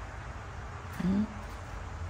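Faint steady background hum with one brief vocal sound from a person about a second in.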